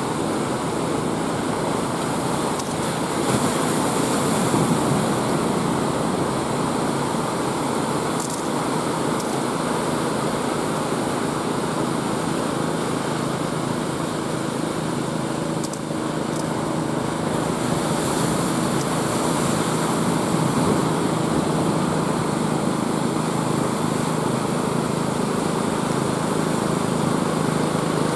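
Sea surf washing in steadily, with a couple of stronger surges of hiss as waves break. A small engine hums underneath, clearest in the second half.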